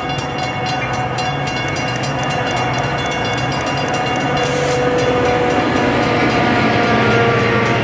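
A diesel-hauled commuter train with bilevel coaches passes close by. The locomotive engine runs with a steady hum, growing gradually louder as the train goes by.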